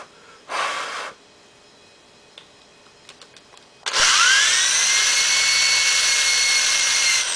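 Electric drill spinning a primer-pocket reamer against a .223 brass case, cutting the primer pocket out to large rifle size. The drill starts about four seconds in with a rising whine that levels off and runs steadily. Before it there is a short burst of noise and a few light clicks.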